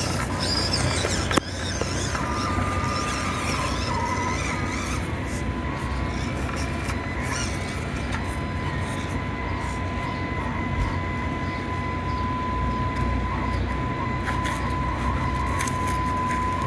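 Small electric motor and gears of a 1/24-scale Axial SCX24 RC rock crawler whining as it crawls, a thin steady whine that wavers slightly in pitch over a low background rumble. A sharp click about a second and a half in.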